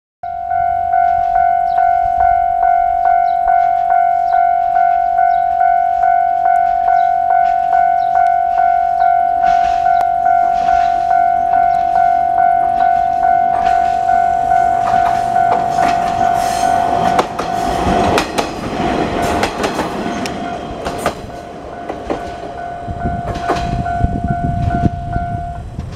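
Japanese level-crossing warning bell ringing steadily, about twice a second, while a Heisei Chikuho Railway 400-series single diesel railcar approaches and passes. Wheels clack over the rail joints for several seconds past the middle, and the bell stops just before the end.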